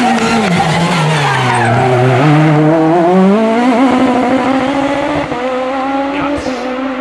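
Peugeot 306 Maxi kit car's four-cylinder rally engine running hard: the revs fall over the first two seconds, then climb again about three seconds in and hold high as the car accelerates.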